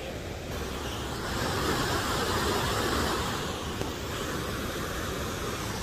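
Maligne River rushing through the narrow limestone gorge below: a steady noise of fast water over rocks, louder from about a second in until nearly four seconds in.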